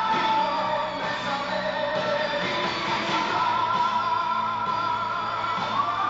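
Music: a song with long held, wavering notes over a steady backing. Near the end, cheering from an audience begins to rise over it.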